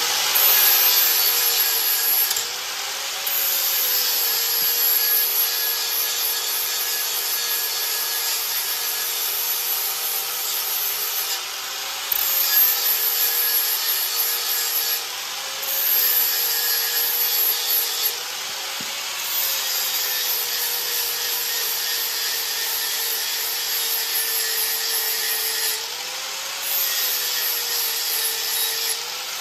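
Angle grinder running under load, its disc grinding metal. The motor briefly speeds up each time the disc comes off the work, about six times, then settles back as it bites again.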